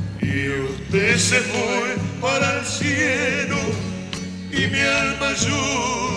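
Argentine zamba folk music: acoustic guitar accompaniment under a melody line carried with strong, wavering vibrato, with no sung words.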